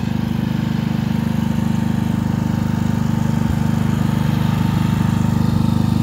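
Portable generator's engine running steadily through its unmodified exhaust: a low, even drone with a fast regular pulse, growing slightly louder towards the end.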